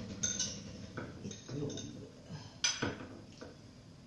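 Dishes and cutlery clinking and knocking as soup is served: a few separate sharp clinks, the loudest a little under three seconds in, with a faint voice in between.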